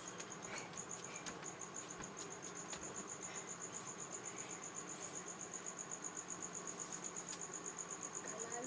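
A cricket chirping steadily: a fast, even run of high pulses without a break, with a few faint knocks here and there.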